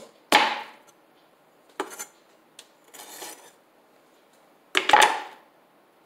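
Chef's knife chopping through corn cobs onto a wooden cutting board: two loud knocks about four seconds apart, with a lighter knock and a short scrape between them.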